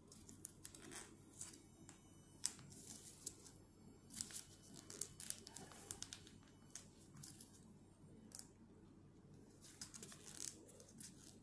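A small sheet of origami paper crinkling and crackling faintly as fingers fold and crease it, in several short runs of quick crackles.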